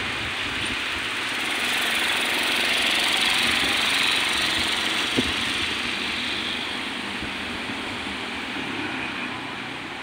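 Street traffic: a motor vehicle, likely a motorbike, passes, its engine and tyre noise rising to a peak and then fading away. A single sharp click about five seconds in.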